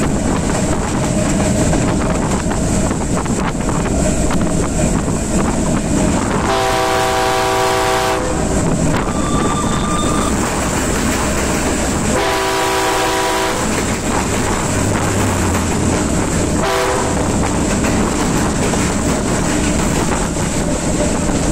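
A diesel locomotive running on the track, with steady engine and wheel noise. A train horn blows twice, two long chords each about a second and a half long, some six seconds apart, and gives a short toot about three seconds after the second.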